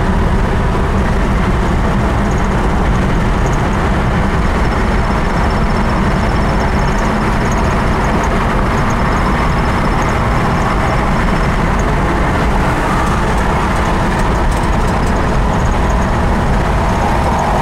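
Steady in-cabin driving noise of a 1957 Buick Estate Wagon cruising on the freeway: the V8 engine, tyres and wind blend into an even, low rumble with no change in speed.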